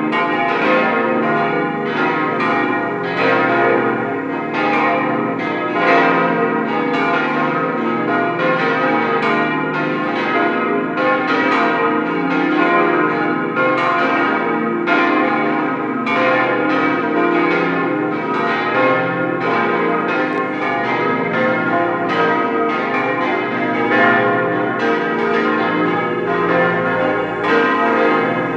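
Several large cast-steel church bells of a 1954 Bochumer Verein peal, tuned b° c' es' f' as', swinging and ringing together. Their strikes overlap in an irregular pattern, about one or two a second, over a steady ringing hum.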